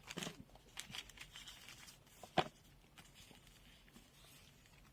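Faint rustling and light clicks of small accessories and packaging being handled, with one sharper click about two and a half seconds in, then almost nothing.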